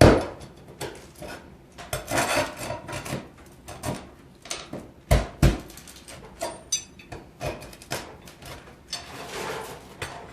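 Flat pry bar (wonder bar) working roofing nails out of asphalt shingles: a run of metal clicks and scrapes with sharp knocks. The loudest knock is at the very start, and two more come about five seconds in, half a second apart.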